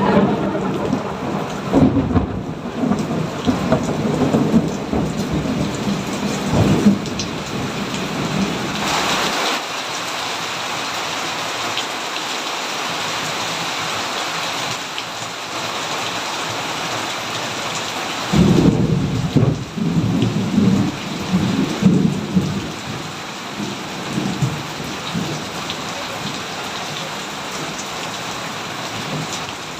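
Thunderstorm: steady rain with rolling thunder rumbling over it for the first several seconds, then rain alone, then a second roll of thunder about two-thirds of the way through.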